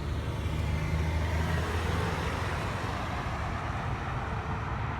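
A car's engine running, a steady low rumble with road noise.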